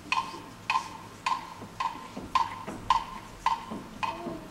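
Timer ticking steadily, a little under two ticks a second, each tick a sharp woody click with a short ringing tone.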